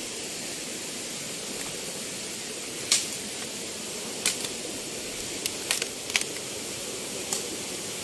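Steady rush of a waterfall, with a few scattered sharp clicks and knocks over it from about three seconds in.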